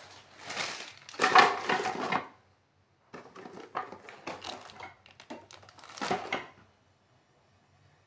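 Cardboard Playmobil box and its small plastic pieces being handled: rustling and clattering, loudest about a second and a half in, then scattered clicks and rustles that stop about two-thirds of the way through.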